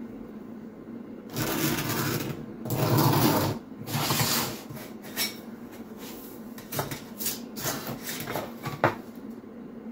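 Three rough scraping strokes of about a second each, a pencil drawn along a steel square to mark lines on masking tape. Then a run of light clatters and one sharp knock near the end as the steel square and a long steel straight edge are set down on the vinyl floor.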